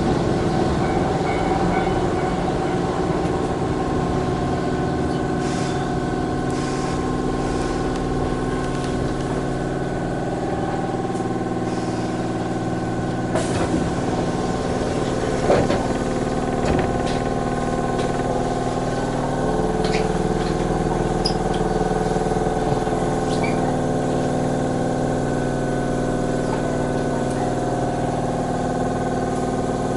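Electric commuter train standing at a station: the steady hum of its on-board electrical equipment, with a few short knocks near the middle and a slight change in the hum about two-thirds through.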